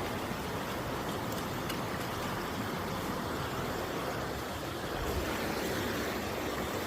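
Waterfall, its water rushing steadily.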